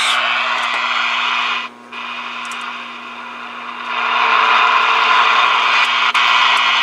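Atlas 23-channel AM CB radio receiving skip on channel 6: loud static hiss from its speaker over a steady low hum. The hiss drops out briefly just before two seconds in, stays quieter for a while, then swells up again about four seconds in.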